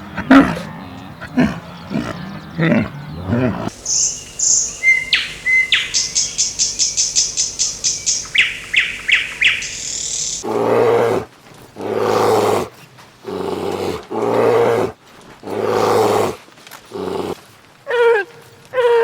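Animal calls in succession: a few short cries first, then several seconds of small birds chirping and trilling rapidly, then a run of loud, drawn-out calls from a larger animal, each under a second long, ending in shorter wavering cries.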